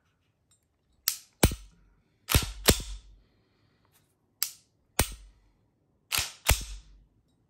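Pistol slide on a Glock 19-pattern build racked back and let fly forward about four times, each cycle a pair of sharp metallic clacks. The slide cycles freely when racked fully and quickly.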